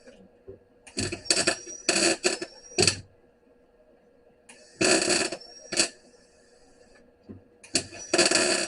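MIG welder laying short tack welds on sheet-steel floor pan: a series of crackling bursts, each a fraction of a second long and stopping sharply, about five in a cluster, then two, then two more near the end.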